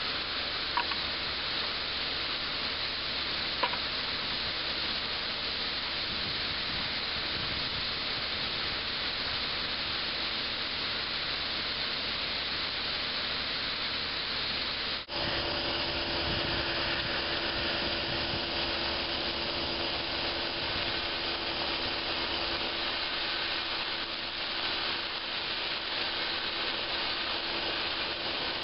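Steady hiss of a pressure-pot sandblaster: abrasive sand poured into the pot, then, after a brief break about halfway, the blast nozzle spraying abrasive onto a demountable clincher rim. Two short clicks come near the start.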